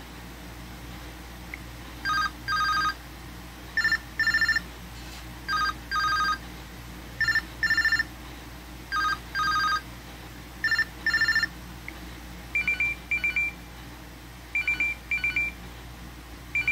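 An LG Optimus F7 ringtone played through the phone's speaker. It is a telephone-style electronic ring: a short tone then a longer one, repeated six times about every 1.7 s. From about twelve seconds in it changes to higher, shorter paired beeps about every two seconds.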